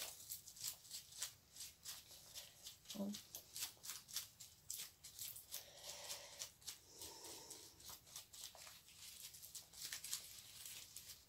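Latex-gloved fingers rubbing together while working wet watercolour paint: a faint, irregular crinkling and ticking, several small sounds a second.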